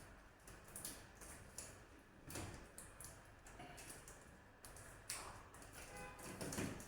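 Faint, irregular clicks and taps of a battery-operated smoke detector's plastic case and battery being handled while its faulty battery is swapped.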